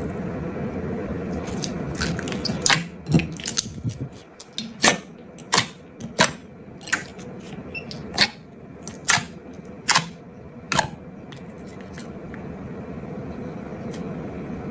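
Glossy slime being squeezed and poked, giving about a dozen sharp, irregular clicking pops over several seconds, with a steady low rustling noise before and after them.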